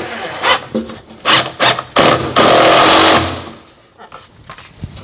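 DeWalt cordless impact driver driving a long screw into a wall plug to fix a shelf to the wall. It runs in a few short bursts, then once more for about a second with a rapid rattle, and winds down.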